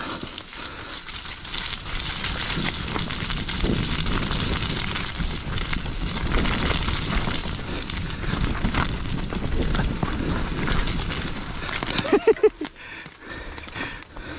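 Mountain bike rolling down a rough dirt trail: the tyres crunch over dirt and stones and the bike rattles, as a dense, crackly rumble. About twelve seconds in there is a short pitched sound, and then it goes quieter as the bike slows.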